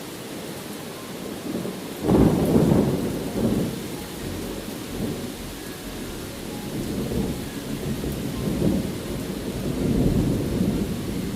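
Steady rain with thunder: a sudden loud rumble of thunder about two seconds in that rolls away over a few seconds, then softer rumbles near the end.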